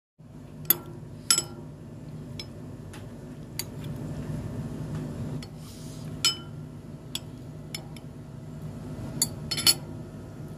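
Metal spoon clinking against a glass bowl while scooping soup: about ten sharp, irregular clinks, the loudest near the start and near the end, over a steady low background hum.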